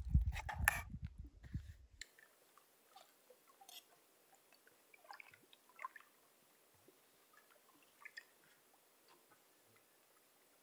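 Utensil stirring pasta in a small metal camping pot, a quick run of clicks, scrapes and wet squelches that stops abruptly about two seconds in. After that, near silence with a few faint scattered ticks.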